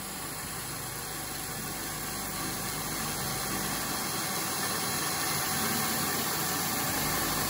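Vertical knee mill's spindle running with a half-inch carbide end mill taking a light spring pass along a keyway slot in 1018 steel, over a steady hiss from the mist coolant nozzle. The sound slowly grows louder.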